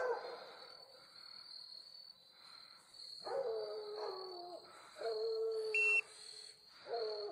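Bear hounds baying in the distance: long drawn-out bawls, several with a falling pitch, spaced a second or two apart, from dogs holding a bear that has not climbed a tree. A short high beep sounds just before six seconds in.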